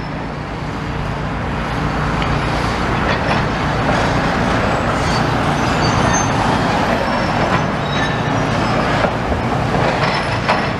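Road traffic passing close by: a steady rush of vehicle engines and tyres on the road, swelling over the first couple of seconds and staying loud.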